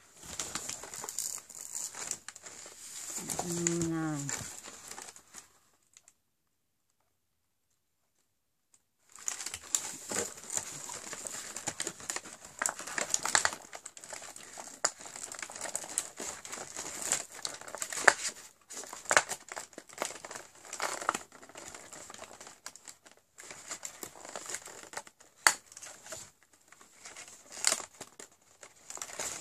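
Cardboard advent-calendar doors and plastic packaging being opened by hand: crinkling and crackling with small clicks and bits of tearing. About six seconds in the sound cuts out completely for about three seconds, then the crinkling starts again.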